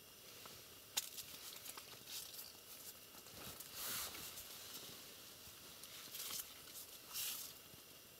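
Faint handling noises: a sharp click about a second in, then several short rustles as a hand reaches in over the ice-fishing gear.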